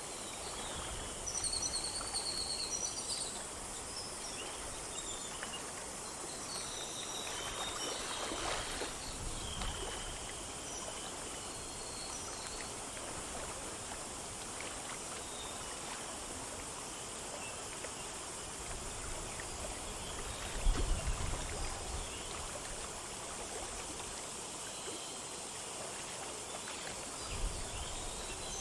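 A small stream flowing over stones, a steady rush of water, with birds chirping and calling above it, most often in the first ten seconds and again near the end. A brief low rumble about twenty seconds in is the loudest moment, with a smaller one near the end.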